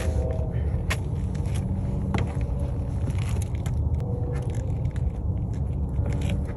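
Steady low rumble of wind buffeting the microphone, with scattered sharp clicks and scuffs from people moving on the rocks.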